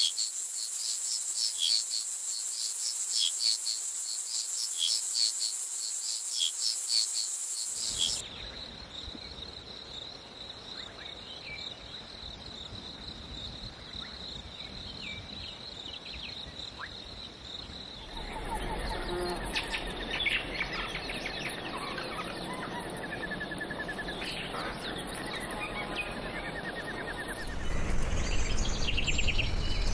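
Nature ambience in changing stretches: first a high, shrill insect chorus with regular chirps, then from about 8 s a single steady high insect whine over a soft hiss, and from about 18 s many birds chirping and calling, louder near the end.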